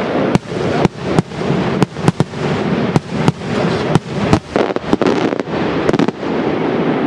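Maltese daylight fireworks going off overhead: a rapid, irregular string of loud bangs, about two a second, over a continuous crackle.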